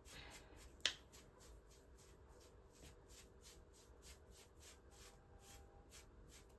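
Faint, quick scratchy strokes of a small bristle brush through short hair at the hairline, about four a second, with one sharp click about a second in.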